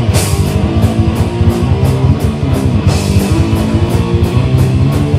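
Live heavy metal band playing an instrumental passage: electric bass and guitar over a drum kit, with a cymbal crash at the start and a fast, steady run of cymbal hits.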